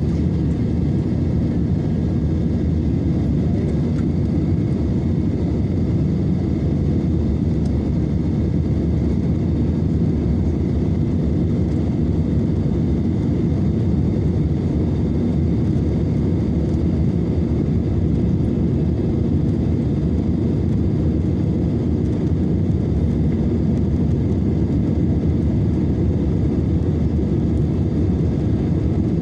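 Steady cabin noise of an Airbus A320-family jetliner in flight: the jet engines and rushing airflow heard from inside the cabin, a constant low rumble with a faint steady whine above it.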